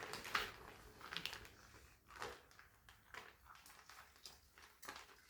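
Faint rustling and squishing of wet, freshly wrung laundry being handled and laid out, in about five short bursts.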